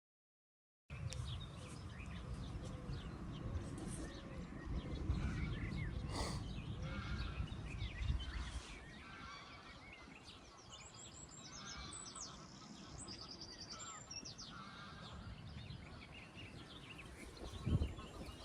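Birds calling and singing, with many short chirps and several fast trills, over a low rumble. The sound starts about a second in.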